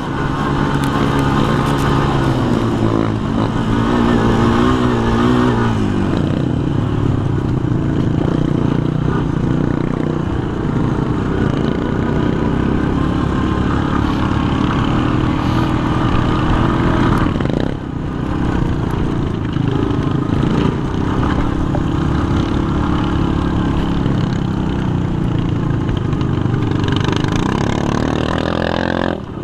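A sport quad's engine running under throttle while riding across sand dunes, heard from on board. Its pitch rises and falls several times in the first few seconds, then holds fairly steady, with a brief drop in level about two-thirds of the way through.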